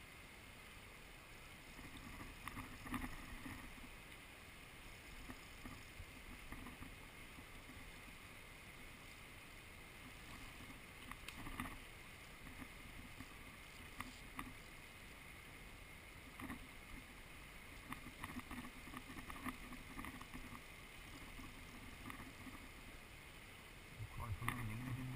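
Steady, faint rush of river water flowing over stones, with scattered small clicks and knocks now and then.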